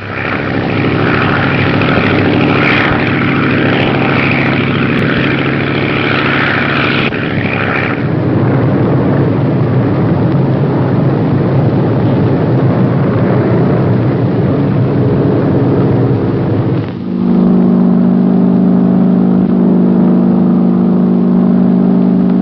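Propeller airplane engines droning steadily. About seventeen seconds in the engine noise drops away and loud, held music chords take over.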